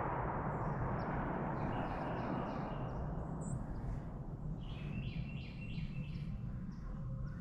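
The echo of a gunshot fired just before, fading away over the first few seconds. Small birds chirp in short repeated series over a low steady rumble.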